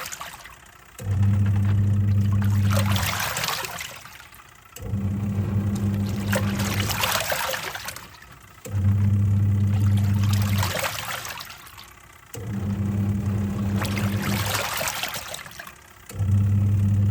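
Twin-tub washing machine agitating a load: the wash motor hums for about two seconds, stops, and starts again about every four seconds as the pulsator reverses direction, with water sloshing and swishing between the runs. Five motor runs are heard.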